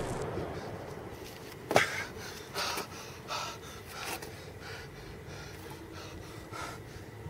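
The rumble of an explosion fades out, then a boy gasps and pants for breath in a series of short, rough gasps. The first gasp is the loudest, and the others follow about every two-thirds of a second.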